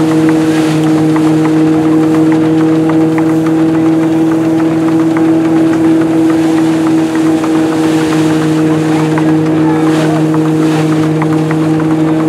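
Vintage wooden threshing machine running while sheaves are fed in, giving a steady droning hum with light rattling of straw and grain going through.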